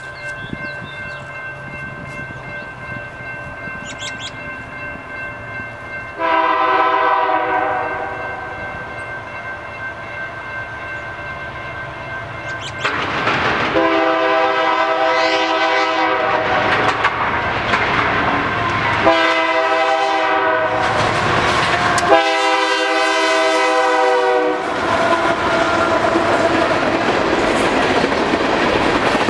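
Air horns of BNSF GE AC44CW and ES44AC freight locomotives blowing the grade-crossing signal, long, long, short, long, growing louder as the train approaches. From about twenty-five seconds in, a steady rumble of wheels on rail as the locomotives and a string of empty coal hoppers pass close by.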